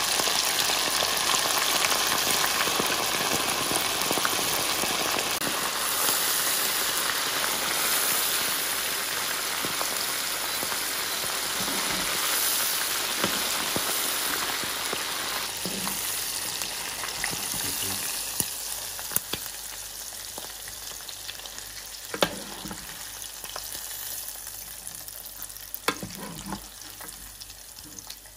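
Cornflour-coated squid deep-frying in hot vegetable oil in a saucepan: a dense, crackling sizzle that fades over the second half. A few sharp clicks of the metal slotted spoon against the pan come in the last third.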